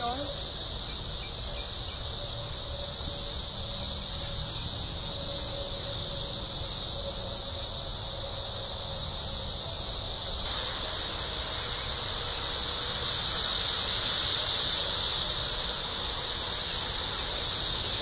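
Loud, steady high-pitched chorus of Brood X periodical cicadas, a continuous shrill whine, swelling a little about two-thirds of the way through.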